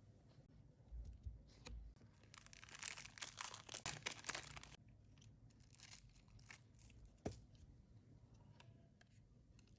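Faint close-up handling noises while working on a mobile phone: scattered light clicks and taps, and about two and a half seconds in, a burst of crinkling, tearing noise lasting about two seconds.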